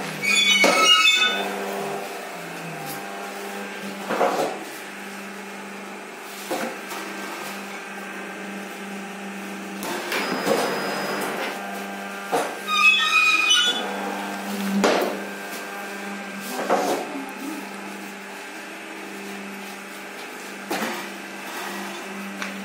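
Automatic paper plate machine running: a steady motor hum, with the forming die pressing down about every two seconds in a thud, two of the strokes with a ringing metallic clank.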